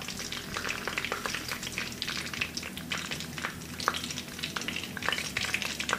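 Hot frying oil sizzling in the bottom of a kazan, with scattered sharp crackling pops, as it heats up to fry meat.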